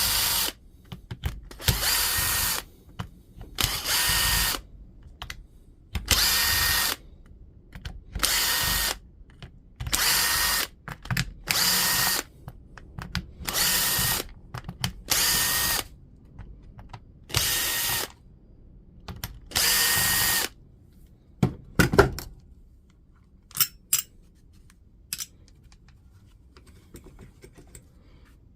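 A cordless power driver backing out small T15 Torx screws from a power-tool housing: about eleven short whirs, each under a second with a steady whine, roughly two seconds apart. A few sharp clicks follow near the end.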